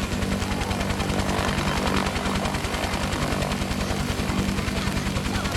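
AH-1W SuperCobra attack helicopter running on the ground with its main rotor turning: a steady engine hum over a fast, even rotor beat.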